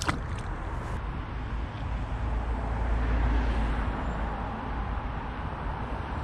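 Outdoor background noise: a low rumble under a steady hiss, swelling for a second or two about halfway through.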